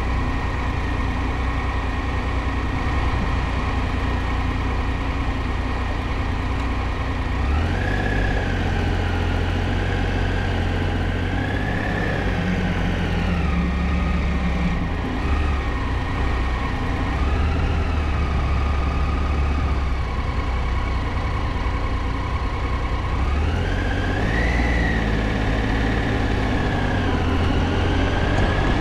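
Triumph Tiger 800 motorcycle's three-cylinder engine running steadily, then pulling away about seven seconds in, its revs rising and dropping back several times, with another climb in revs near the end.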